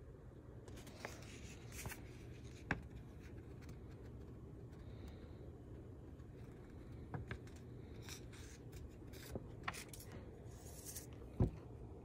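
A paper banknote being handled and turned over on a table: faint rustling with a few soft clicks and taps, and a sharper thump near the end.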